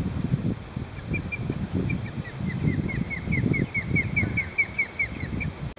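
Osprey calling: a rapid series of short, high, whistled chirps, about four or five a second, starting about a second in and stopping just before the end. Wind buffets the microphone with a low rumble underneath.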